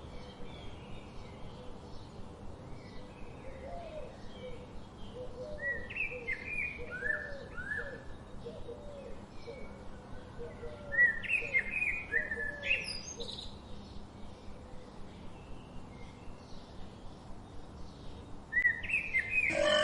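Birds chirping in a run of short, downward-sliding notes, busiest in the middle stretch.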